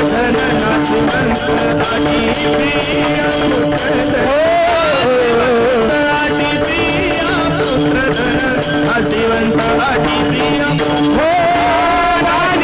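Marathi kirtan music: a man singing long gliding devotional phrases over a steady held accompaniment, with a regular beat of percussion and small cymbals. The singing rises to the front twice, about four and eleven seconds in.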